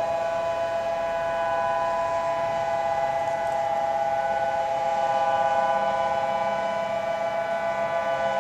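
Civil defense warning siren sounding a steady tone made of several notes together, held without rising or falling, as a tsunami warning signal.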